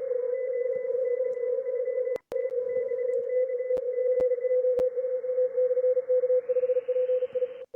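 Morse code (CW) received on a shortwave SDR receiver: a keyed tone around 500 Hz sits in steady band hiss, with fainter Morse from other stations at higher pitches. There are a few sharp clicks and a brief dropout. Near the end the hiss gets brighter as the receiver passband is widened.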